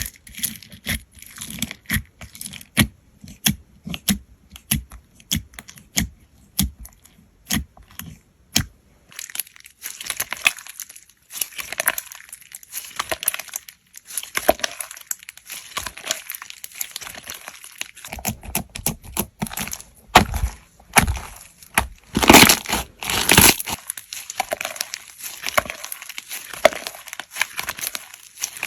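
Slime being pressed and worked by hand. For the first nine seconds it gives sharp clicking pops about once a second; after that it turns to denser crackling and crunching, with the loudest crunches about twenty to twenty-three seconds in.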